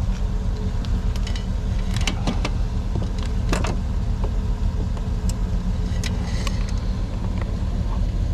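A vehicle engine idling steadily in the background, with a few light clicks and clinks as a meter is handled at the truck's batteries.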